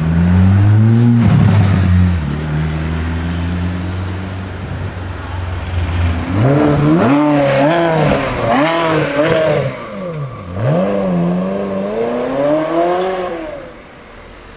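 Sports car engines at high revs: one car pulls away loudly in the first two seconds, then from about six seconds in an engine revs up and drops again and again in quick sweeps, with one deep dip about ten seconds in, before it fades out near the end.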